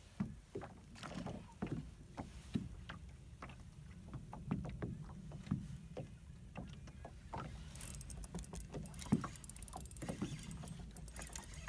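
Scattered knocks and taps in a small boat, then about eight seconds in a fast, fine ticking from a spinning reel as a hooked channel catfish is fought on the rod.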